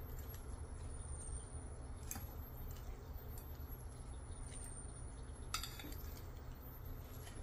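A fork clinking lightly against a ceramic bowl a few times as shredded cabbage salad is tossed, the clearest clinks about two seconds and five and a half seconds in, over a steady low hum.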